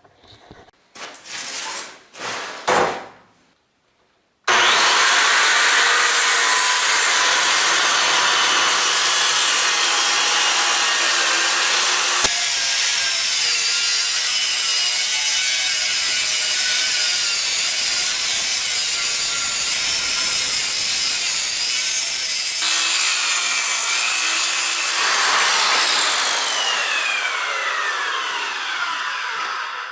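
Power saw cutting through a thick oak slab: a loud, steady cutting noise with a high wavering whine, after a few short handling noises. Near the end the blade winds down with a falling whine.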